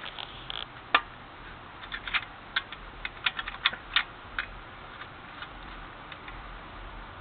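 A wrench working the rear axle lock nuts of an internally geared hub loose: one sharp click about a second in, then a run of irregular sharp clicks and taps.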